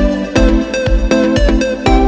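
Electronic dance music with a steady kick drum, about two beats a second, under a bright synth melody.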